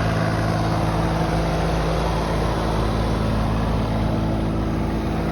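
Kubota K008T4-3 mini excavator's small diesel engine running steadily at an even speed.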